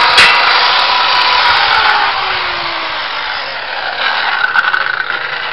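Handheld electric circular saw finishing a cut through a timber cabinet top, then released: the blade coasts to a stop with a slowly falling whine over about three seconds. A few knocks and rattles follow as the saw is handled.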